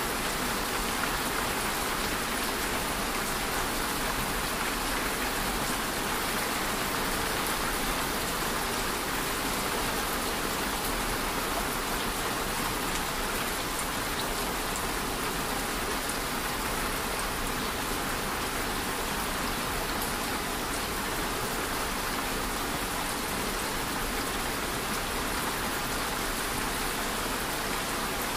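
Steady rainfall: an even, unbroken hiss of rain with fine ticks of individual drops through it.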